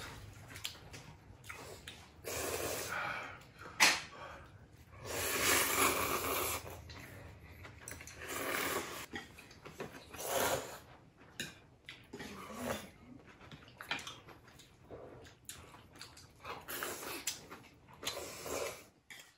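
Ramen noodles being slurped in repeated bursts of a second or so, with quieter chewing between them. A sharp knock or clink about four seconds in is the loudest sound.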